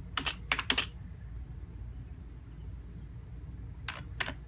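Four quick clicks at the computer in the first second, then two more near the end, over a steady low hum.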